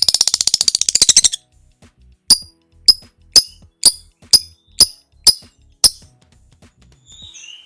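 Lovebird 'ngekek' song: a loud, very rapid chattering trill lasting about a second, followed by eight sharp, high-pitched chips at about two a second.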